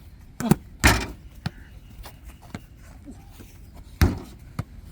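A football bouncing on a table and being kicked back and forth in a table foot-volley rally: a handful of sharp thuds, the loudest about a second in and another about four seconds in.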